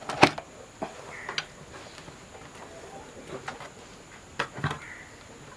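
Scattered clicks and knocks of hands working on an LED floodlight and handling tools and parts, the sharpest a loud click just after the start.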